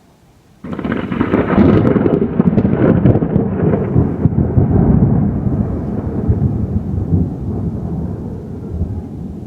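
Thunderclap from a nearby lightning strike: a sudden sharp crack about half a second in, crackling at first, then a long rolling rumble that slowly fades.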